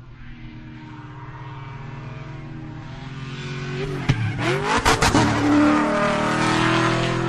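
Lifted Chevrolet Silverado pickup's engine running with a steady rumble that grows louder, then revved hard about four seconds in, with several sharp cracks and the pitch dipping and then rising.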